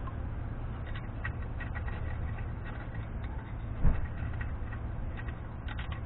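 Light metallic ticks and scrapes of a steel pick working the spindle-nut lock ring inside a front wheel hub, as it is nudged to line up with the locating pin. There is one dull thump about four seconds in, over a steady low hum.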